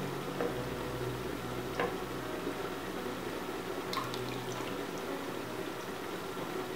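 Water pouring or trickling over a steady low hum, with a few light clinks, the clearest about two and four seconds in.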